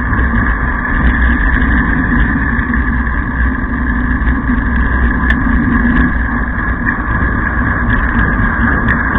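Downhill racer's wheels rolling fast over coarse asphalt with wind noise, heard close to the road: a loud, steady rumble with a few faint clicks near the end.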